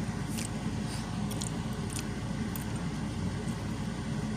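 A person biting into and chewing a crispy baked potato, with a few faint crunches in the first three seconds, over a steady low hum.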